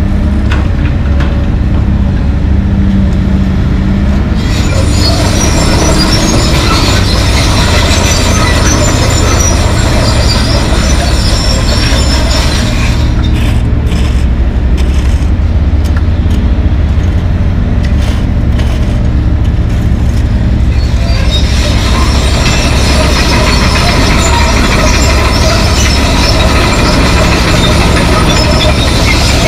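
Komatsu PC220LC excavator working, its diesel engine a steady low drone, with high metallic squealing and clatter from about four to twelve seconds in and again from about twenty-one seconds on.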